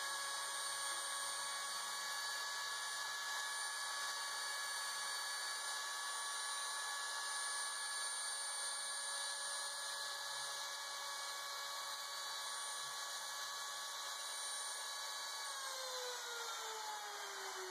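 Homemade CNC router's spindle motor running at a steady speed with an even whine. About 15 seconds in its pitch starts falling as it spins down at the end of the milling job.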